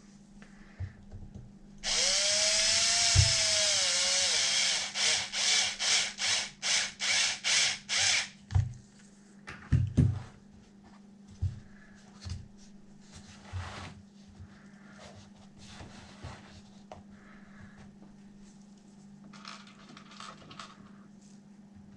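Handheld power drill running for about three seconds, its motor pitch rising and dipping under load, then triggered in about nine short bursts. Light knocks and handling noises follow.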